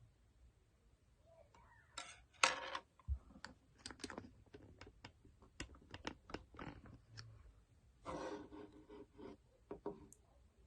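Handling of a plastic glue bottle and bowl: a string of sharp clicks and taps with short crinkly rustles, the loudest about two and a half seconds in and a longer rustle around eight seconds in.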